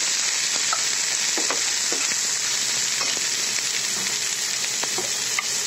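Taro stolons with chopped onion and garlic frying in oil in a nonstick pan: a steady sizzle, with scattered light taps and scrapes of a steel spatula as they are stirred.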